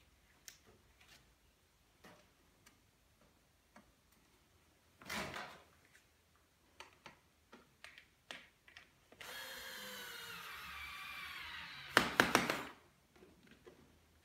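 Hand-tool work on a stroller's handle-adjustment mechanism: scattered small clicks and knocks, a short scrape about five seconds in, a drawn-out grating sound that slowly falls in pitch for about three seconds, then a loud burst of sharp clicks and rattling.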